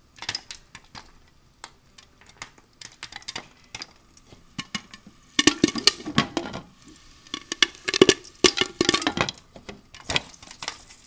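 Popcorn kernels popping in a lidded pan on a hot stove: scattered sharp pops, with two denser, louder runs of popping and pan clatter, about halfway through and again near the end.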